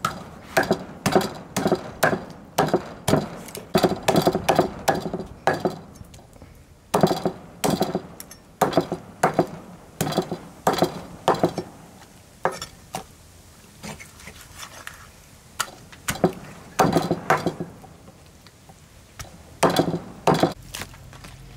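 A knife chopping on a wooden cutting board: repeated knocks, about two to three a second, coming in runs with short pauses, each with a brief ringing tail.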